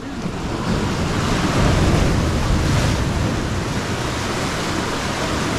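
Sea surf washing and breaking against the rocks of a jetty, swelling to its loudest about two seconds in, with wind buffeting the microphone.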